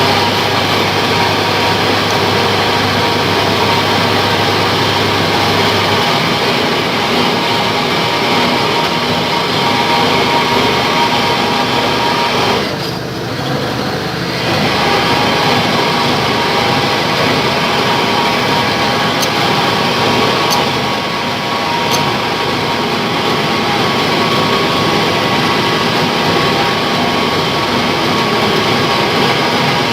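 A small metal lathe running steadily, with machine noise and several steady tones. The sound dips briefly about 13 seconds in, and a low hum stops about 6 seconds in.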